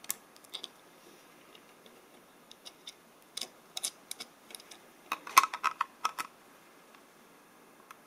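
Scattered light clicks and taps of hands and pliers fitting and tightening a screw-mounted panel connector in a 3D-printed plastic case, with a quick run of clicks a little past the middle.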